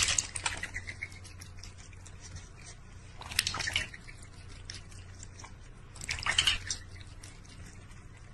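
Water splashing and dripping in a large stainless steel bowl as a cat paws at it, in three short bursts about three seconds apart.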